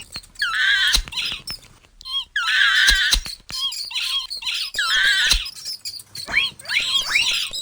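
Mouse squeaking sound effects: three bursts of high squeals, with quick rising chirps before and after them, and a few sharp clicks in between.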